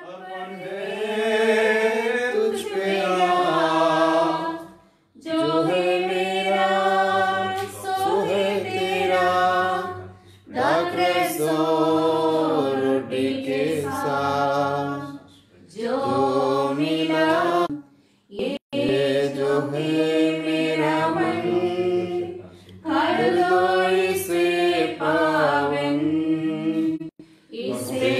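Voices singing a church hymn without accompaniment, in sung phrases of a few seconds with short breath pauses between them.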